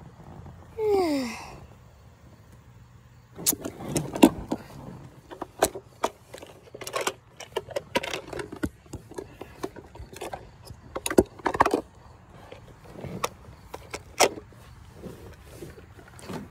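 Irregular clicks, taps and rustles of a phone being handled close to its microphone, with a short falling squeak about a second in.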